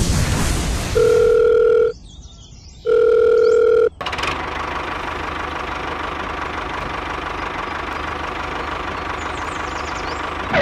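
Two long, steady electronic beeps, each about a second, a second apart. A steady mechanical running drone then sets in about four seconds in and continues.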